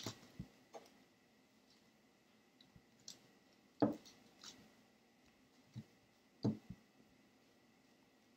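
Glue stick being rubbed over construction paper on a wooden table: faint, scattered soft taps and rubbing strokes every second or so.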